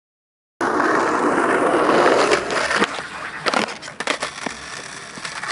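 Skateboard wheels rolling over rough pavement, starting abruptly about half a second in, followed by a run of sharp clacks and knocks from the board from about two seconds in.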